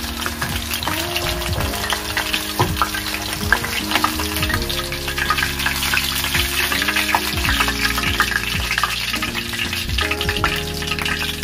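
Chicken pieces deep-frying in hot oil in an iron kadai, a steady sizzle full of small pops and crackles, as the cooked pieces are lifted out of the oil with a wire spider skimmer.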